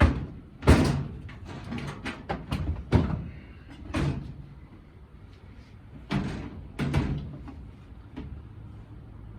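A series of irregular knocks and clunks from parts being handled and fitted, the loudest about a second in, with further knocks around three, four, six and seven seconds in.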